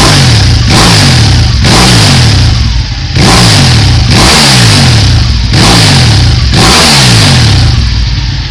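Ducati Panigale 1199S L-twin engine revved hard through an Akrapovic exhaust: a string of quick throttle blips, each revving up and falling back, very loud.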